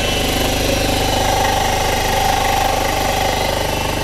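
Old cylinder-head surfacing machine running, its rotating cutter skimming the face of an aluminium five-cylinder Ford Focus ST cylinder head. A steady cutting whine comes in about half a second in and fades near the end, over the constant hum of the machine's motor.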